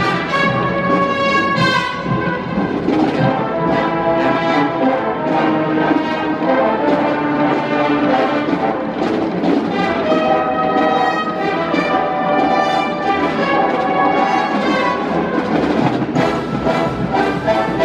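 High school wind band playing: brass and woodwinds holding sustained chords with a melody over them, with timpani, heard in a large reverberant dome.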